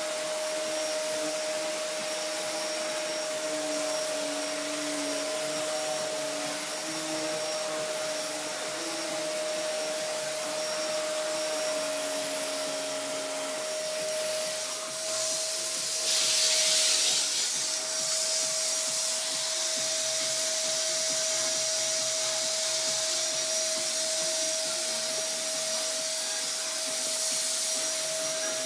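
Wertheim 4412 cylinder vacuum cleaner running with a motorised brush-roll power head pushed across carpet: a steady motor whine over the rush of suction air. A little past halfway the air rush grows louder for about a second.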